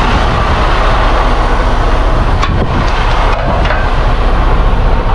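Semi-truck diesel engine idling close by, loud and steady, with a couple of sharp metal clicks about halfway through as the air-line glad hands are handled for hooking up to a container chassis.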